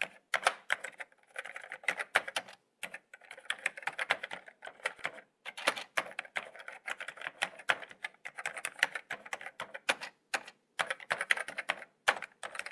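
Typing sound effect: rapid, irregular key clicks in runs broken by short pauses, keeping time with title text typed out letter by letter.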